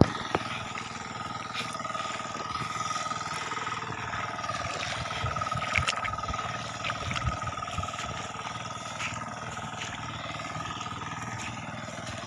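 Single-cylinder hand tractor (kuliglig) engine running steadily, with a steady high whine over its low rumble.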